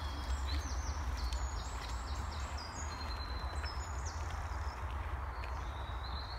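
Woodland birds singing, runs of short high notes repeated in stepped phrases, over the crunch of footsteps on a dirt path and a low rumble on the microphone.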